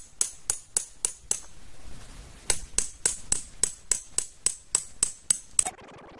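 Tent peg being hammered into the ground, sharp metallic strikes about four a second. A short run of strikes stops about a second and a half in, and after a brief pause a longer run of about a dozen strikes ends near the end.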